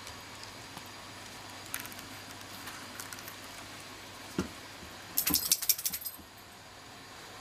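A soft low thump, then about a second of sharp metallic jingling, like small metal pieces shaken together.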